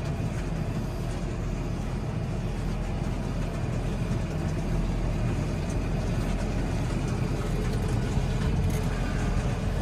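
Tractor engine running steadily, heard from inside the cab while driving across the paddock.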